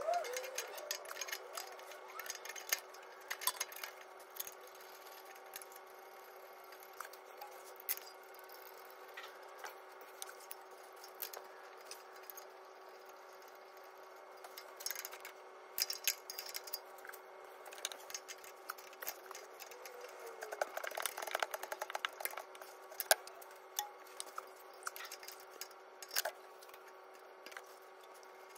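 Scattered small metallic clicks and clinks as a turbo actuator and its bolts are handled and fitted by hand, with a busier run of clicks about two-thirds of the way in, over a faint steady hum.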